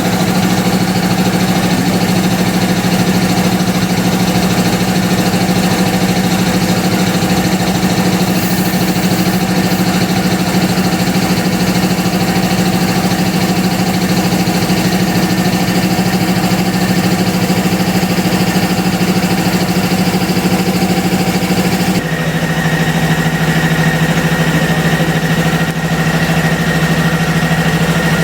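A motor running at a steady pitch, its hum shifting slightly lower with a thin high whine added about 22 seconds in.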